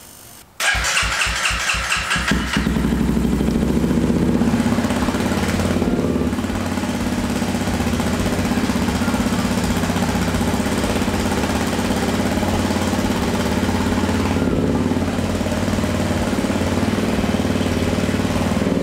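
Honda CRF300L single-cylinder engine, fitted with a Black Widow full exhaust and new cams, cranking on the electric starter for about two seconds before it catches, then idling steadily. This is the first start on the new exhaust, with a rag held partly over the outlet to find exhaust leaks.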